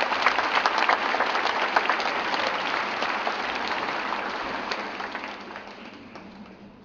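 Audience applauding at the end of a ballet solo: dense clapping from many hands that thins out and fades over the last couple of seconds.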